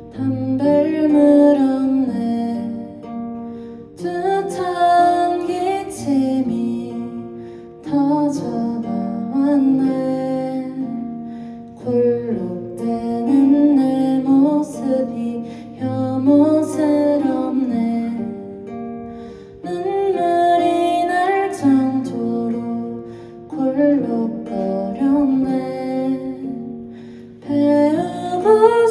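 Acoustic guitar playing chords, with a new chord struck about every four seconds, and a voice singing a melody over it.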